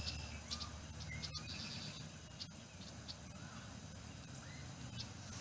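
Small birds chirping in short, scattered calls, faint over a low steady rumble.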